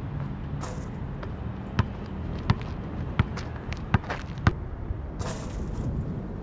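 A basketball is dribbled on an asphalt court: about five sharp bounces come roughly every half to three-quarters of a second from about two seconds in. Two short hissing noises come near the start and near the end.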